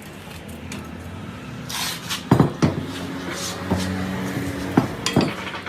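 Engine idling with a steady low hum, broken by several sharp knocks a couple of seconds in and again near the end.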